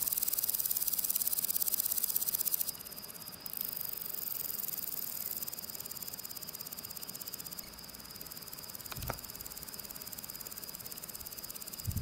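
Grasshopper stridulating: a continuous, fast high-pitched buzzing trill that drops a step in loudness a few seconds in. A brief low thump about nine seconds in.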